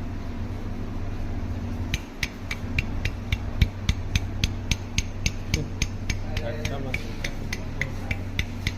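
Engine running steadily with a sharp, regular knock about three to four times a second, starting about two seconds in. This is the crank noise that the title calls a problem.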